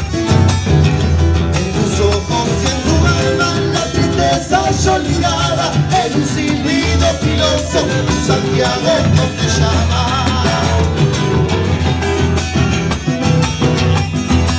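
Live Argentine folk band playing: acoustic guitars strummed over a steady bombo legüero drum beat, with voices singing a melody into microphones.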